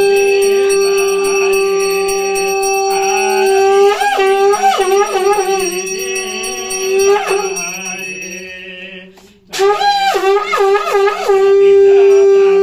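Conch shell (shankha) blown in long, steady, loud blasts, with quick upward pitch flips where the note breaks. One blast fades away about nine seconds in, and after a brief gap for breath a new blast starts.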